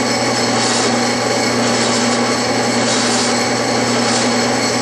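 Clausing metal lathe running steadily with the spindle turning and no cut being taken. It gives an even mechanical hum with a steady whine, and a high hiss that swells briefly now and then.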